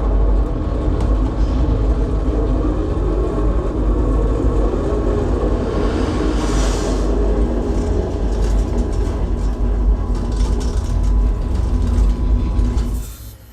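Movie sound effects played through a home-theatre surround system with a subwoofer: a loud, dense rumble of heavy machinery with strong deep bass, which drops away sharply near the end.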